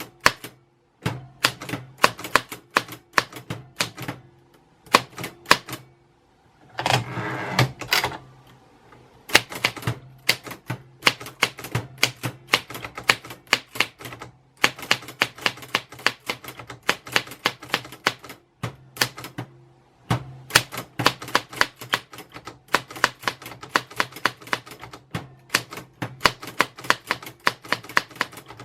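Typewriter keys striking in quick runs of clicks, with short pauses between runs. About seven seconds in there is a continuous noisy sound lasting about a second.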